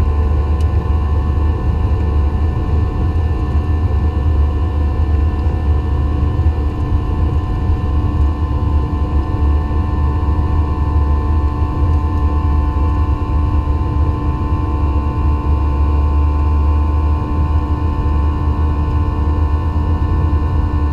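Cabin noise of a Boeing 737-800 taxiing, heard inside the cabin over the wing: a steady low rumble with a steady whine from its CFM56-7B engines at low thrust.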